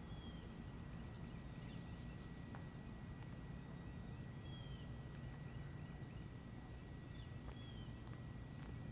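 A domestic cat chewing a shrew, heard as a few faint clicks over a low steady hum. A bird gives a short falling chirp about every three seconds.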